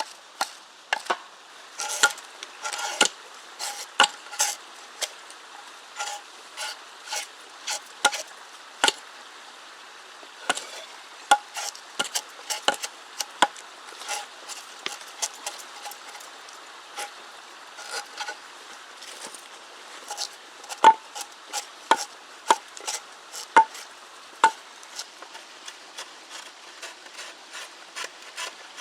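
Bark being scraped and peeled off wet dead-wood poles: a long run of irregular sharp scrapes and clicks, a few of them louder snaps.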